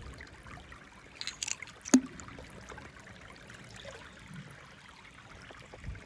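Small toy cars handled and rolling on a plastic track playset: a low rattling rumble with a few light clicks, and one sharp click about two seconds in.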